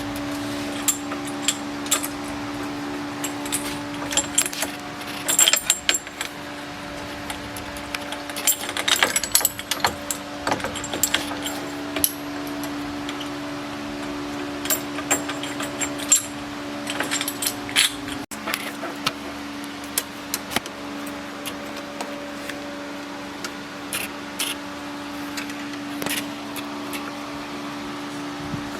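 Metal hand tools and hardware clinking and jangling on and off in scattered clusters over a steady low hum.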